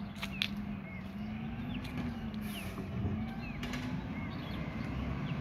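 A garbage truck's engine running down the street, a steady low hum that wavers slightly in pitch. Short bird chirps and a few light clicks sound over it.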